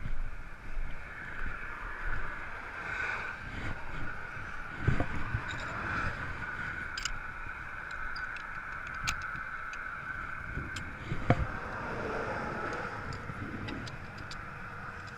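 Steady road traffic and wind noise at the roadside, with two sharp knocks about five and eleven seconds in.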